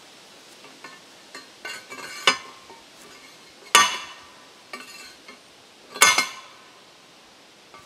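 Hand post pounder slamming down on the top of a steel well pipe three times, each blow a sharp metallic clang with a short ring, with lighter metal clinks between blows. The blows are driving a sand point well pipe into the ground by hand.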